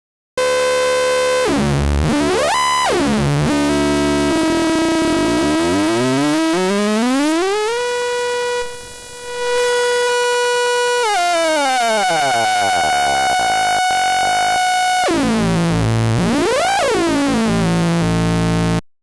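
Hard-synced oscillator synthesizer built in Unreal Engine MetaSounds, a buzzy tone whose bright overtones sweep up and down as the synced oscillator's pitch is moved, while the base pitch shifts in steps. It thins and drops in level for a moment near the middle, then cuts off suddenly near the end.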